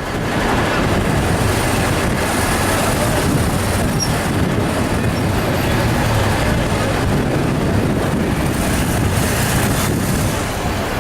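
Steady city street noise dominated by a constant low traffic rumble.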